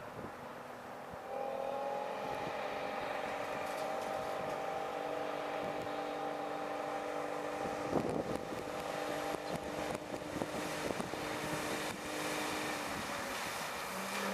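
Heavy goods vehicle engine running steadily as the lorry drives through floodwater, with a knock about eight seconds in and the engine note dropping lower near the end.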